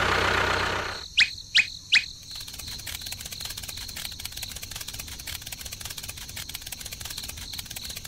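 A loud, noisy rumble that cuts off about a second in, followed by three quick whistle-like chirps, each falling in pitch. After them comes a faint, fast, steady ticking like insects in the background.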